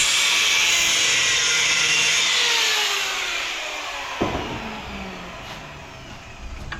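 Angle grinder cutting scrap brass, then let off and winding down, its pitch falling as it slows over several seconds. A single knock about four seconds in.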